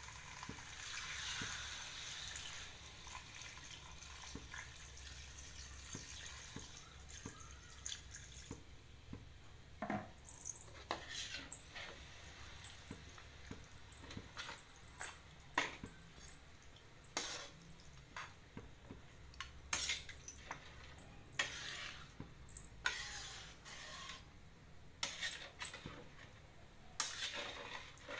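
Coconut milk poured into a hot wok of beef and spice paste, a steady liquid hiss for about the first eight seconds. Then a metal spatula stirring the gulai, with irregular clinks and scrapes against the wok.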